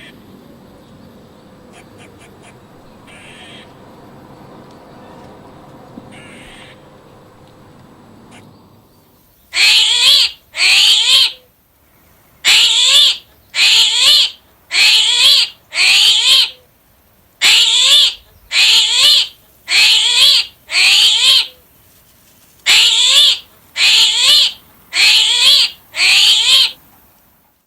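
Loud, harsh animal calls, each under a second and rising in pitch, repeated about sixteen times in runs of two to five, starting about nine seconds in. Before them there is only faint background noise with a few faint short calls.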